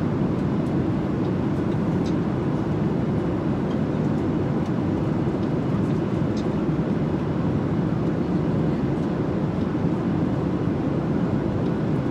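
Jet airliner cabin noise in flight: a steady, even low roar from the engines and the airflow, with a faint steady hum.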